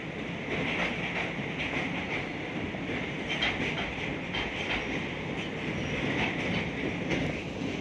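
Train wheels running on the rails of a steel girder railway bridge: a steady rumble and rattle with occasional clicks.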